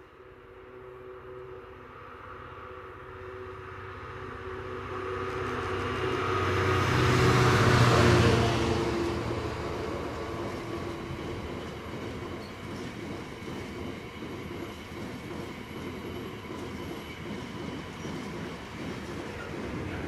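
Intermodal container freight train approaching and passing. The locomotive's sound builds to a peak about eight seconds in, then the long line of loaded container wagons rolls past steadily.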